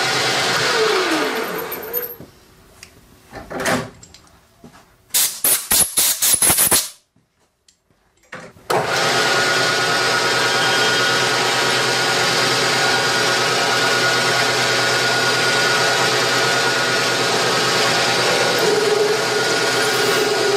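Small metal lathe running steadily with the spindle turning a steel gear blank. About two seconds in, the sound drops away to a few sharp clicks and a moment of silence, then the lathe runs again. Near the end a held tone rises over the running noise as the parting tool cuts the part off.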